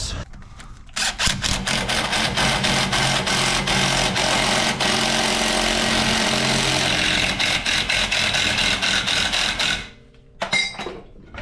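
Cordless impact wrench hammering on a bolt at a car's rear hub, a continuous run of rapid impacts that starts about a second in and stops after about nine seconds. The bolt is being driven to crack a seized part loose.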